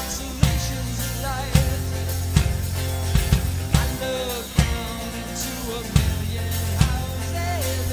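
Rock music: a drum kit playing a steady beat with heavy strokes a little under a second apart, over a low bass line and a singing voice.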